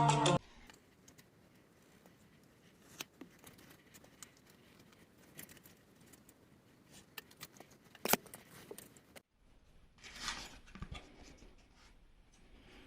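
Quiet handling sounds of crafting work: scattered clicks and taps, the sharpest just after eight seconds, and a short scrape or rustle about ten seconds in. Intro music cuts off at the very start.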